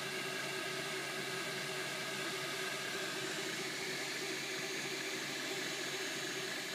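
Makerbot Replicator 3D printer running mid-print: a steady whirring hiss with a constant low hum from its cooling fans and the motors moving the print head.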